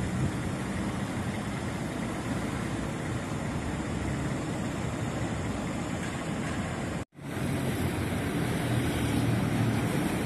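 Diesel engine of a Mercedes-Benz OH 1626 NG coach running steadily as the bus moves slowly past, with a brief dropout about seven seconds in.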